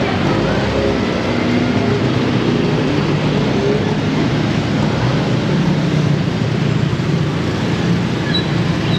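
Busy city street traffic: a steady wash of vehicle engines and tyres, with a low engine hum held nearby.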